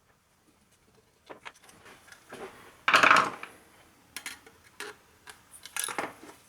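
Metal parts of a brass lightsaber hilt being handled, with scattered clinks and taps and a louder rattling scrape about three seconds in.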